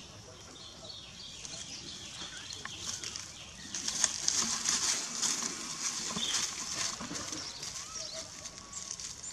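Dry rustling and crackling, louder from about four seconds in, with a few faint, short high squeaks.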